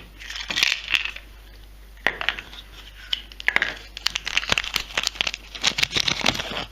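Small plastic pieces of a Kinder Surprise toy clicking and rattling as they are handled, with some crinkling, in quick clusters of sharp clicks.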